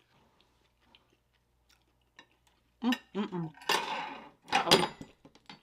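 A metal spoon clinks against a plate and serving tray as it is set down, with a few sharp clinks late on. A short voiced sound from the eater comes just before.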